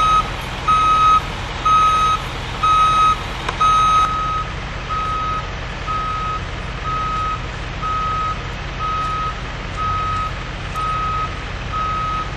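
Vehicle reversing alarm beeping steadily, about one and a half beeps a second, louder for the first few seconds and then softer, over a low engine rumble.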